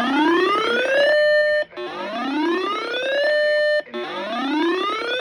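Electronic siren-style alert tone broadcast over the radio. It rises steadily in pitch, holds briefly, then cuts off, repeating about every two seconds. It is an attention signal ahead of a severe thunderstorm warning bulletin.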